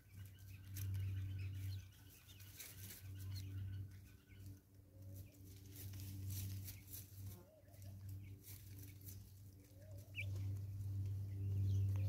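Natal spurfowl pecking seed off a wooden log: quick, irregular beak taps on the wood. A low hum that swells and fades sits under the taps.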